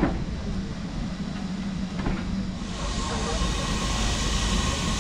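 Steam locomotive at the platform: a low rumble with a knock at the start and another about two seconds in. Then, about two and a half seconds in, a steady hiss of escaping steam sets in and keeps going.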